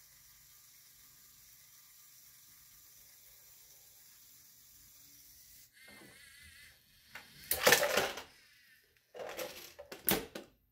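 A LEGO robot's motor whines faintly, then its plastic grabber arm and a toy trash can clatter as the arm lifts the can: one loud burst of rattling, then two shorter ones. This follows about six seconds of near-quiet room hiss.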